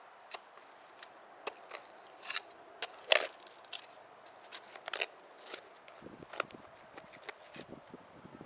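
Digging tool scraping and jabbing into soil in a small hole, an irregular run of gritty scrapes and clicks with one louder strike about three seconds in.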